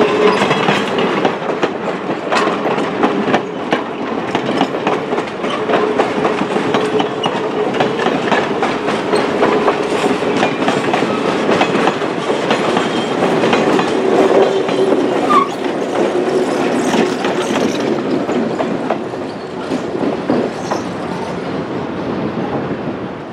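Passenger train cars rolling past close by, wheels clattering over the rail joints. The sound fades away near the end as the last car goes by.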